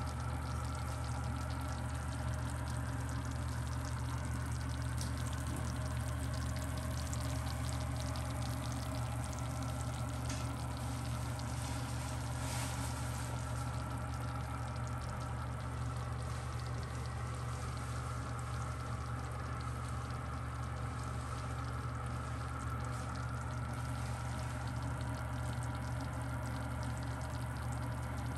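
Freshly baked doria (Japanese rice gratin) faintly sizzling and crackling in its glass baking dish, over a steady low hum.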